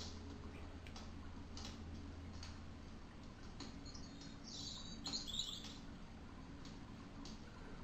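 A small bird chirping: a short run of high, quick chirps about halfway through, over faint scattered light ticks.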